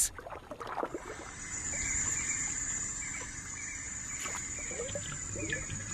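Flooded rainforest ambience: a steady high-pitched insect drone over soft water sounds, with a few short chirps near the end.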